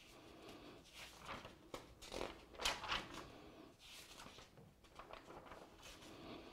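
Pages of an old paper logbook being turned and handled: a series of soft, irregular rustles, the loudest a little before halfway.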